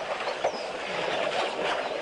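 Elephants wallowing in mud and shallow water at a waterhole, a busy run of sloshing and splashing, with small birds chirping briefly now and then.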